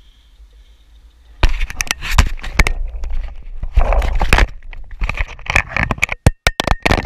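Close handling noise from a GoPro action camera being pulled off its handlebar mount: a run of loud knocks, scrapes and rubbing on the housing starting about a second and a half in, with a string of sharp clicks near the end.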